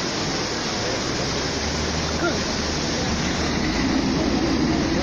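Steady roar of a swollen river in flood, rushing water with no break, with a low rumble joining in about three and a half seconds in.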